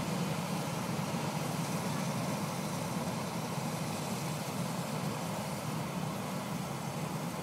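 Hot-air balloon's propane burner firing: a continuous steady roar that holds without a break.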